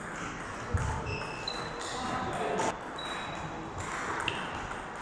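Table tennis rally: a string of sharp clicks as the plastic ball strikes bats and table, about every half second, some with a short high ping. There is a low thump about three-quarters of a second in.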